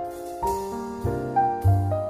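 Background music: keyboard notes and chords struck every half second or so over a low bass line.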